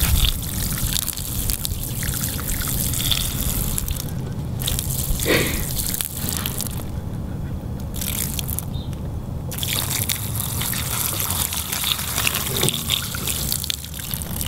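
A thin stream of liquid falls and splashes, trickling onto rocks and gravel.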